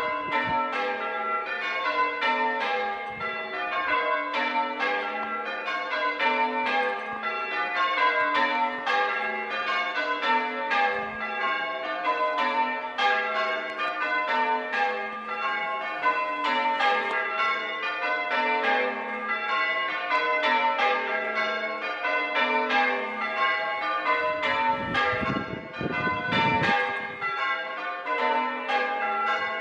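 Ring of six church bells, tenor about 8¾ cwt tuned to G, rung full-circle in changes: a continuous, evenly spaced stream of strikes with the pitches following each other in shifting order. A brief low rumble is heard about 25 seconds in.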